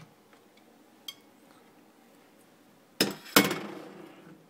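A dish clattering in a stainless-steel kitchen sink: a faint tick about a second in, then two sharp clanks about three seconds in, the second the loudest, with a rattle that dies away over about a second.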